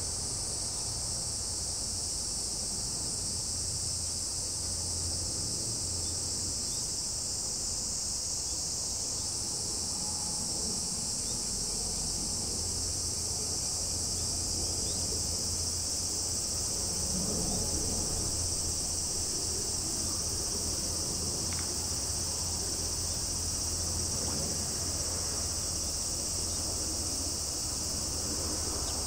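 A dense, steady, high-pitched insect chorus shrilling without a break, with a low steady rumble underneath.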